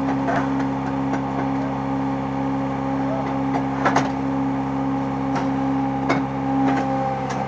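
Electric motor and hydraulic pump of a fly ash brick press running with a steady hum. Sharp knocks come now and then as the press is worked.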